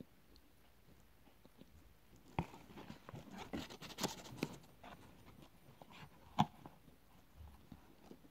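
A metal spoon digging into an open cardboard box of corn starch, the packaging rustling and crinkling for a couple of seconds. There are sharp clicks of the spoon against the box about two and a half seconds in and again about six seconds in.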